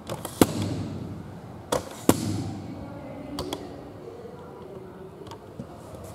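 A few sharp knocks and clicks, the loudest about half a second and two seconds in, with fainter taps later, typical of handling noise or objects being knocked on a table.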